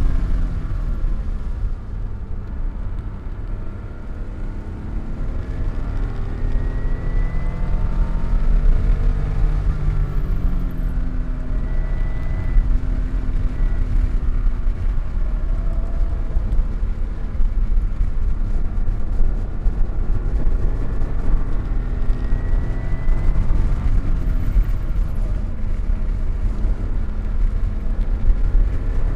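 Car engine at speed on a race track, its pitch climbing again and again and breaking at each gear change, with dips as it slows, over a heavy low rumble.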